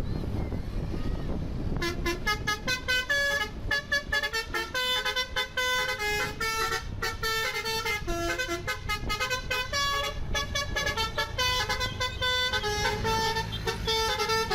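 Basuri telolet multi-tone bus horn playing a fast melody of short, changing horn notes, starting about two seconds in, over wind and engine rumble.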